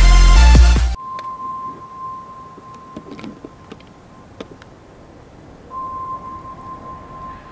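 Electronic dance music that cuts off abruptly about a second in, followed by a faint, steady, high-pitched electronic tone that lasts about two seconds, drops out, and comes back near the end, with a few soft clicks in between.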